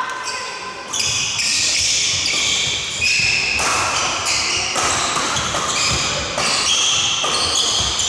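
Badminton shoes squeaking on a wooden court floor, many short high squeaks one after another, with a few sharp racket hits on a shuttlecock, in a large echoing hall.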